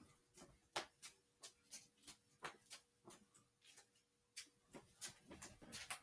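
Faint, irregular clicking, about two or three sharp ticks a second, as a small flag flaps and slaps in a spinning ceiling fan, over a faint steady hum.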